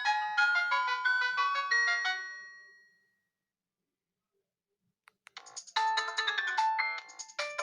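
iTel it5615 phone ringtones: a melody of quick electronic notes fades out about two to three seconds in. After about two seconds of silence the next ringtone starts, a fast run of notes falling in pitch.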